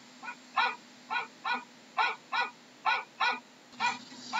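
A dog barking repeatedly: about ten short barks, many of them in quick pairs, a little over two a second.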